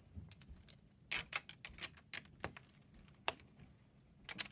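LEGO pieces being handled and pressed together, giving a string of irregular sharp clicks that is busiest about a second in, with one louder click past three seconds.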